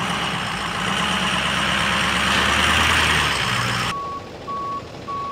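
A nearby truck engine running loud and steady with a strong hiss. About four seconds in it gives way to a vehicle's reversing alarm: three steady high beeps about half a second apart.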